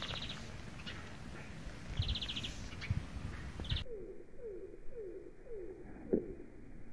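A small songbird's quick buzzy trills over wind rumbling on the microphone. A little past halfway the sound turns slow-motion and dull, and the bird's notes stretch into a row of low falling tones.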